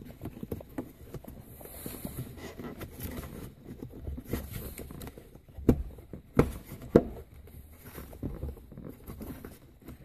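Rubber shifter boot being worked loose by hand from the console opening: irregular rustling and scraping, with three sharp knocks a little past the middle.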